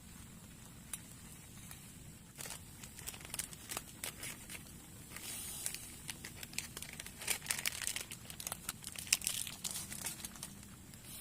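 Crinkling and crackling handling noise, like a crumpled sheet being worked in the hands: a run of dense sharp crackles starting about two seconds in and thinning out near the end.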